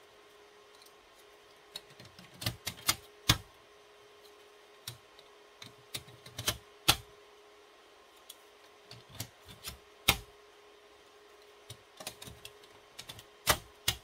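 Hot-swap fan modules being pushed and snapped into the fan cage of a Dell DX-720 server: irregular plastic clicks and knocks in several clusters, the sharpest about ten seconds in and near the end, over a faint steady hum.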